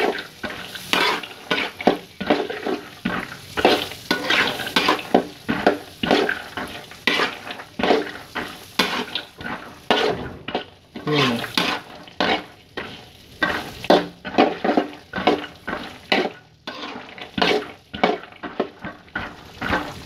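Metal spatula scraping and stirring peanuts frying in oil and margarine in a wok, in quick strokes about twice a second, with the oil sizzling underneath.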